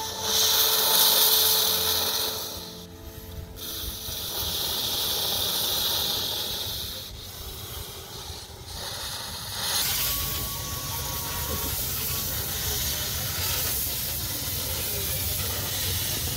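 Steam hissing from the cylinder drain cocks of a 1:4-scale RhB G 4/5 live-steam model locomotive, in several loud bursts. About ten seconds in, it gives way to a steadier hiss with a low rumble underneath.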